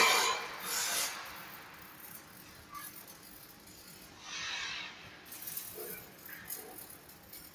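Electric arc welding crackling and hissing in uneven bursts: the loudest right at the start, another just under a second in, and a longer one about four seconds in, quieter in between.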